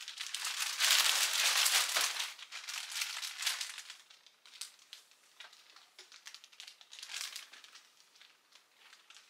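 Plastic bags crinkling and rustling as they are handled, densest for the first few seconds, then lighter scattered rustles.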